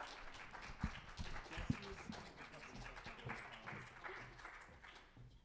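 Audience applauding, dying away near the end, with a few low thumps in the first two seconds.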